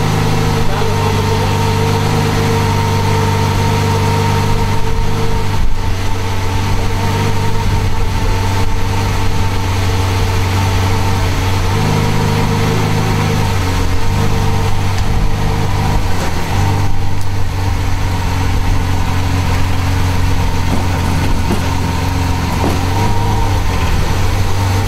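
Lamborghini Veneno's 6.5-litre V12 idling steadily, its pitch shifting slightly a few times.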